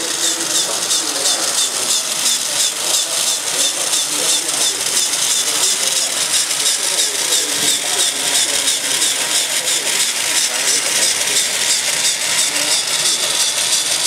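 Working Meccano model mechanism running: a fast, even mechanical clatter of small metal parts, with voices chattering in the background.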